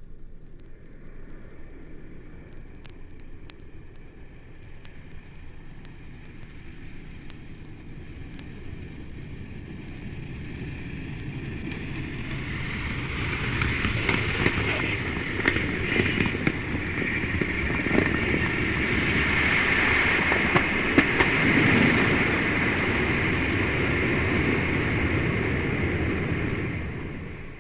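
A heavy vehicle rumbling, growing louder over about a dozen seconds and then running loud with a high steady tone and scattered clicks, before fading out near the end.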